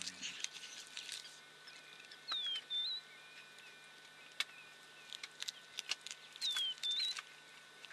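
A honey badger chewing through a cobra close by, making irregular sharp crunching clicks as it bites through the snake. A bird repeats a whistled call twice, each a falling glide followed by a short higher note, about four seconds apart.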